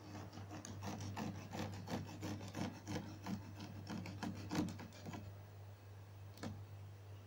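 A small metal blade scraping against the taut warp threads of an upright rug loom in quick repeated strokes, about four or five a second, stopping about five seconds in. One sharp click follows later, over a steady low hum.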